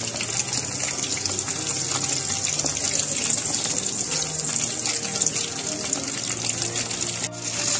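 Batter-coated chicken drumsticks deep-frying in hot oil in a kadai: a steady sizzling hiss with dense crackling of bubbles. The sound dips briefly near the end.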